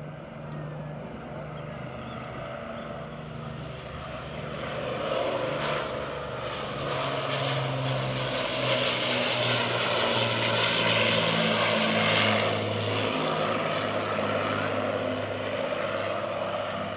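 Avro Lancaster's four Rolls-Royce Merlin piston engines droning as the bomber flies past overhead. The sound grows louder from about four seconds in, is loudest around the middle as the aircraft passes, then drops in pitch and fades as it flies away.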